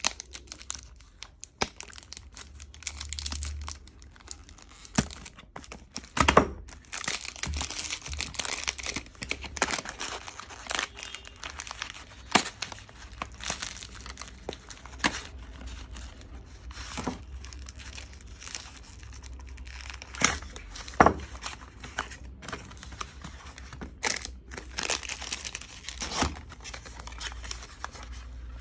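Cellophane wrapping being torn off a cardboard box and crumpled by hand: irregular crinkling and crackling with many sharp snaps.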